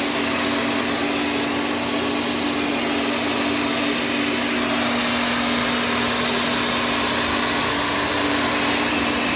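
Shark Stratos upright vacuum cleaner running steadily, a constant motor hum under a broad rushing hiss.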